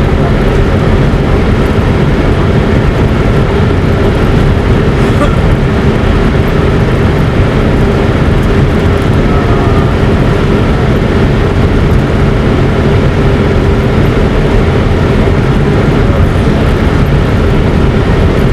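Loud, steady rumble of a vehicle in motion, with a faint steady hum under it.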